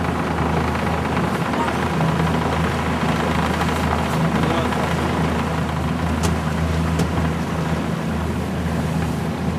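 A motorboat's engine running steadily under way, a low even drone, with the rush of wind and water over it.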